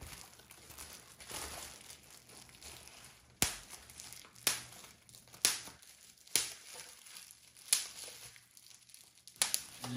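Plastic bubble wrap crinkling as it is handled, then sharp pops about once a second from about three seconds in as bubbles are squeezed between the fingers.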